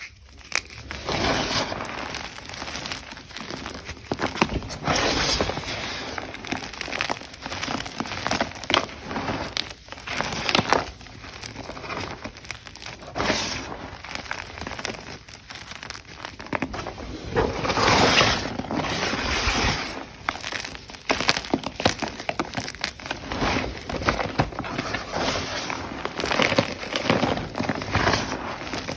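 Blocks of Ader magnesium carbonate gym chalk being crushed, crunching and crackling continuously with many small cracks. The crunching swells loudest about two-thirds of the way through.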